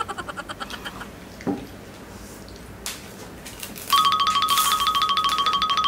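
An electronic telephone-style ringtone trill: a rapid, evenly pulsing warble on two close notes. A first trill fades out within the first second, and a louder one starts about four seconds in and runs for under three seconds.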